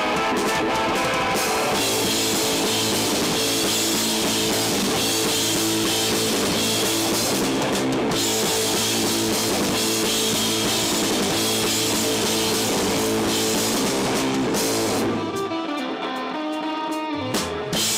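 Live rock band playing an instrumental passage: two electric guitars, bass guitar and drum kit through amplifiers. About three seconds before the end the drums and bass drop out for a couple of seconds, leaving the guitars alone, then the full band comes back in.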